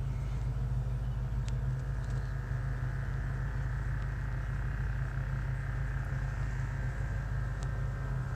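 Steady low hum of an idling vehicle engine, even throughout, with two faint ticks, one about a second and a half in and one near the end.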